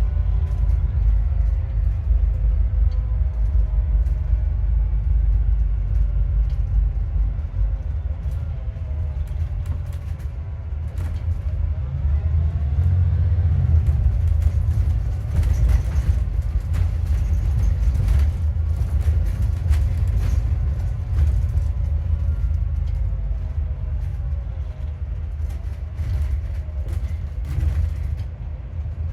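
Alexander Dennis Enviro400MMC double-decker bus heard from on board while under way: a low engine and road rumble with scattered rattles and a whine that rises and falls in pitch with engine speed. The whine is the sign of a bad alternator.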